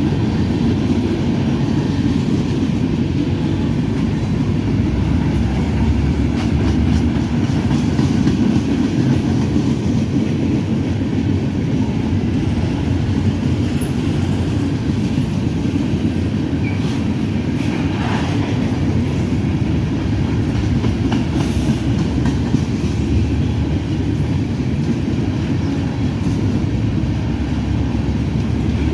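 Freight train cars rolling steadily past with a continuous low rumble, the wheels clicking now and then over rail joints.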